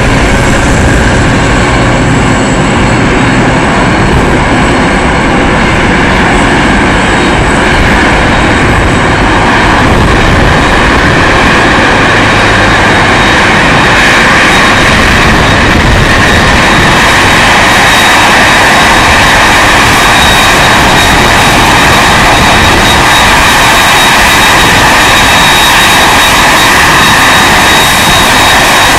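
Jet engines of a Boeing 747-400F freighter running at taxi power as it rolls in, a steady loud roar. A high whine grows stronger about halfway through as the aircraft swings round to face the listener nose-on.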